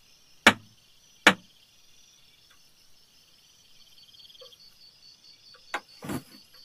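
Two sharp, loud knocks a little under a second apart, then a click and a duller thud near the end. A steady chorus of crickets chirrs underneath.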